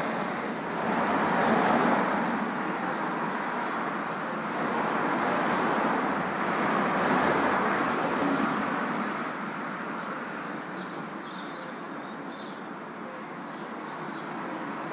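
Outdoor street ambience: a steady wash of road traffic that swells as vehicles pass, about two seconds and seven seconds in, with small birds chirping faintly.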